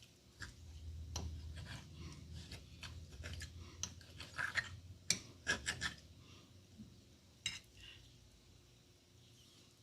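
A fork scraping and clicking against a plate as a bite of casserole is cut: a run of small scrapes and taps, busiest about four to six seconds in, then fading out.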